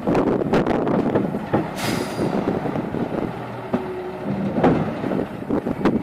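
Wheel loader's turbocharged Zetor diesel engine working hard under load while the bucket is raised and tipped, with scattered clatter and a short hiss about two seconds in.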